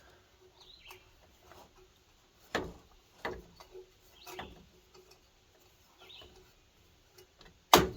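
Scattered clicks and knocks of hand tools on a string trimmer's metal shaft end as a nut is unscrewed, with a sharp, loud clack near the end as the nut pops off.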